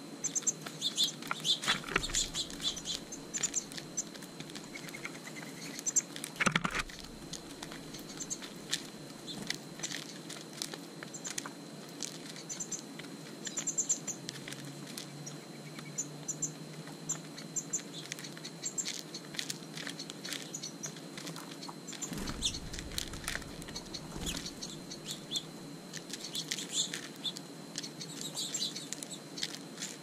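Mourning doves and a house finch pecking seed from a plastic tray, a busy scatter of small sharp clicks, while small birds give short high chirps. Two brief rushes of wing flutter, about six seconds in and again around twenty-two to twenty-four seconds.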